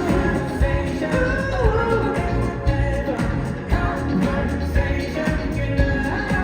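A pop song performed live over the hall's sound system: a male voice singing over a full backing with a steady beat.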